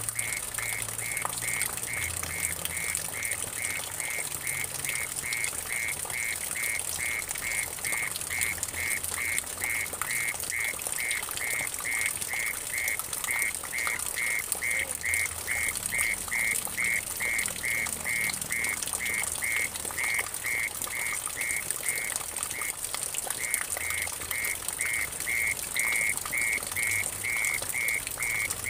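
Mole cricket singing a steady pulsed song of about two pulses a second, briefly pausing about three-quarters of the way through. Water trickles and drips into a muddy puddle, and a steady high hiss runs underneath.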